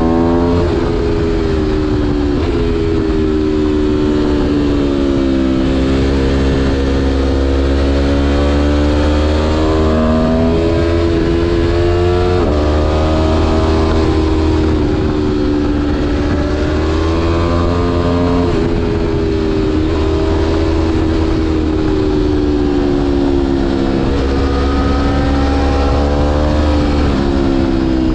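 Aprilia Tuono V4 1100 Factory's V4 engine pulling through a run of curves, its pitch rising and falling as the throttle opens and closes, with a few sudden jumps in pitch at gear changes. Wind rumble on the microphone runs underneath.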